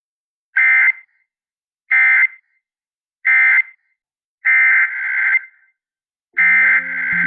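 Emergency Alert System SAME digital data bursts from NOAA Weather Radio, a loud two-tone screech of modem-like data. Three short bursts about a second and a half apart form the end-of-message code closing the warning, then two longer bursts follow, the header of the next alert. A separate lower tone comes in near the end.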